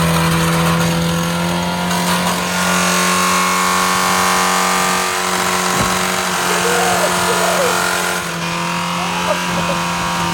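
Mazda Miata four-cylinder engine held at steady high revs while running on soap in place of motor oil, straining as it is run toward failure.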